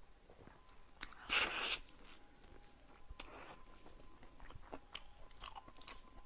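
Close-up eating sounds of a person biting and chewing blood sausage: small wet mouth clicks, with a louder burst of mouth noise about a second in and another around three seconds in.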